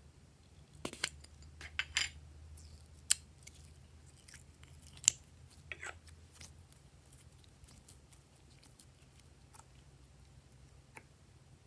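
Glossy slime being handled: a run of sharp sticky clicks and short crackles during the first six seconds, then only a few scattered clicks.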